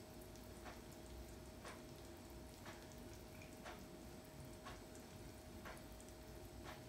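Near silence: faint, evenly spaced ticks about once a second over a steady faint hum.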